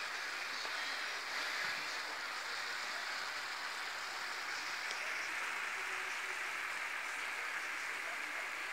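Paella with clams simmering in a wide pan: a steady sizzling and bubbling of the broth as the rice cooks in it.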